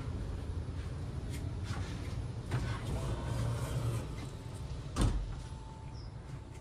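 Footsteps and a low rumble of movement as someone walks through a train car's vestibule into its passenger cabin, with scattered light clicks and one sharp knock about five seconds in.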